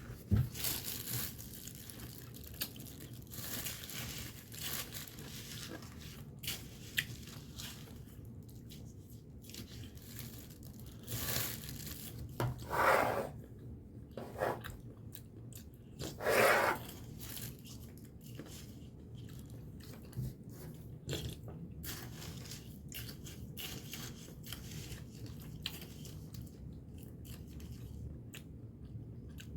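Close-up eating sounds: a person chewing and crunching banana con yelo, sweetened banana with shaved ice. There are many short crunches and clicks, and a few louder, longer sounds about halfway through.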